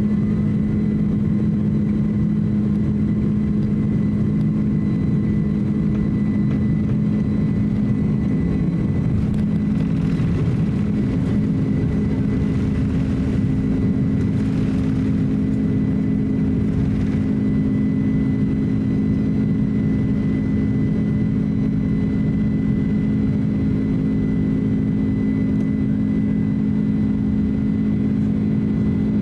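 Boeing 767-300 jet engines at takeoff power, heard inside the cabin: a steady loud drone with a strong low hum through the takeoff run, liftoff and initial climb. A rushing noise swells for several seconds in the middle, then eases.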